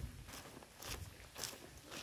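Footsteps on a packed-dirt trail, a person walking at a steady pace of about two steps a second.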